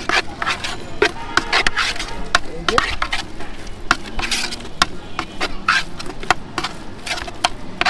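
Bhelpuri ingredients being mixed in a container with a utensil: quick, irregular knocks and clatter, several a second.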